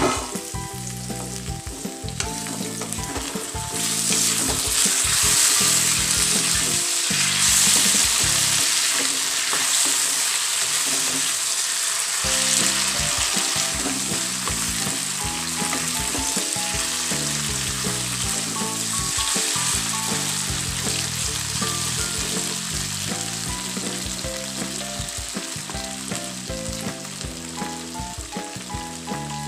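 Potato sticks sizzling in hot oil in an iron wok, turned now and then with a wooden spatula. The sizzle grows louder about four seconds in and slowly eases after about twenty seconds.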